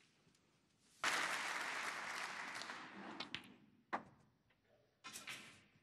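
Snooker audience applauding, starting suddenly about a second in and dying away by about three and a half seconds. A single sharp click follows near four seconds.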